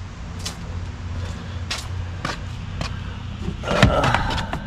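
A few sharp taps, then a rubbery scrape and thump as a car's floor mat is lifted and handled near the end, over a steady low hum.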